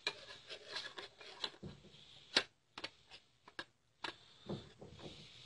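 A metal spoon clicking and tapping against a small bowl in irregular light strikes as rose water is spooned into gram flour, with one sharper click about two and a half seconds in.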